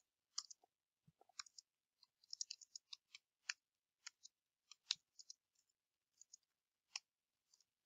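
Faint, irregular clicks of computer keyboard typing, keystrokes coming in short runs with pauses between them.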